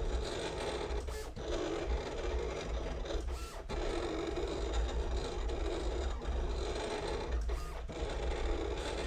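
Silhouette Cameo 4 vinyl cutter at work, its motors whirring as the carriage and rollers move the blade through the vinyl. The whir breaks off briefly three times.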